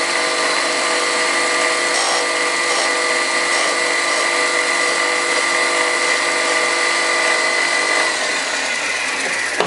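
Small diamond disc on a power tool grinding a groove into a steel pulley blank turning in a lathe. A steady high whine over grinding hiss, winding down from about eight seconds in.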